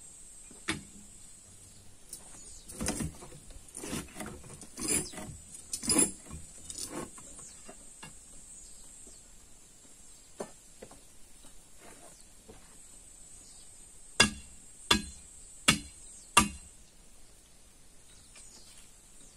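Hammer blows on stone: a run of irregular knocks, then four hard strikes in a row, about two-thirds of a second apart. A steady insect chirr runs underneath.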